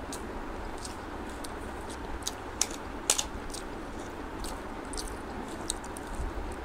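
Close-miked eating: chewing with irregular wet mouth clicks and smacks, a few sharper ones a little past the middle, over a steady low hiss.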